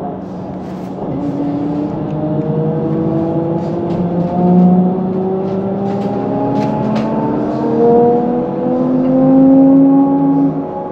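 HESS Swisstrolley 4 trolleybus's electric traction drive whining as the bus gathers speed: several tones at once, slowly rising in pitch over a steady lower hum, with scattered light rattles.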